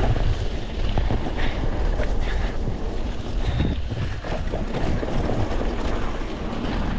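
Wind buffeting the action camera's microphone as a mountain bike descends fast over wet trail, with a steady low tyre rumble and scattered short knocks and rattles from the bike.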